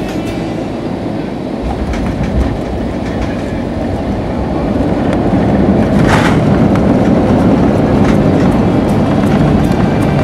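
Cabin noise of an IndiGo Airbus A320-family jet landing: steady engine and airflow noise, then a sudden jolt about six seconds in as the wheels touch down. After that comes louder rumbling of the wheels on the runway as reverse thrust comes on.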